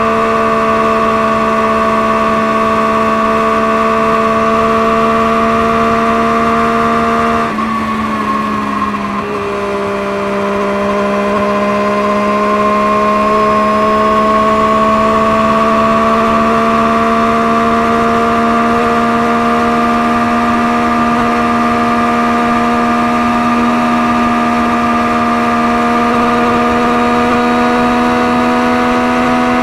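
Engine running through a Scorpion aftermarket exhaust at a steady speed. About seven seconds in the note drops briefly and quietens, then slowly climbs back and holds steady.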